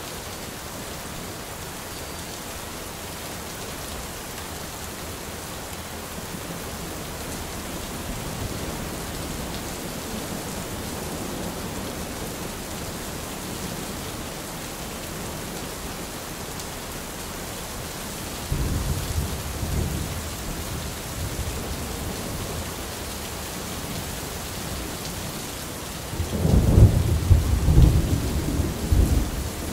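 Steady rain in a storm, with two bouts of low rumbling, one about eighteen seconds in and a louder one near the end.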